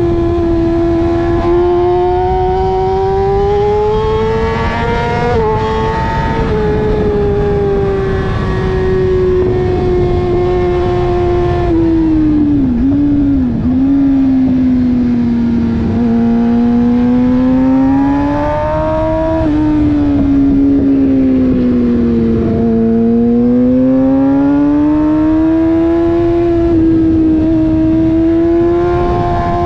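Sport motorcycle engine heard from a camera mounted on the bike while lapping a race track, its pitch climbing under acceleration and sinking through the corners, with two sharp dips about halfway through. Wind rushes over the microphone underneath.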